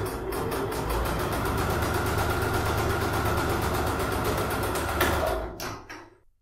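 Electric domestic sewing machine stitching at a fast, steady rate, a rapid even clatter of needle strokes with a motor hum under it. It stops about five seconds in, with a short knock as it halts.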